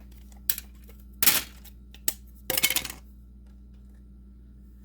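A plastic video game cartridge and its small hard parts being handled on a work surface: a few sharp clicks and clatters, the loudest about a second in and a short rattling cluster a little past the middle.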